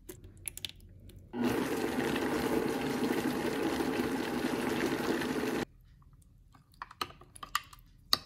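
Countertop blender running for about four seconds, roughly chopping an oily ginger-scallion sauce, then cutting off abruptly. Light spoon taps come before it, and a spoon clinks against a glass measuring cup near the end.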